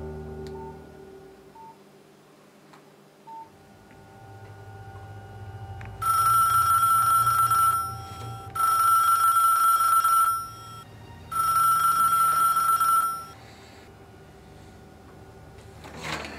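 Telephone ringing three times, each ring a steady high tone about two seconds long.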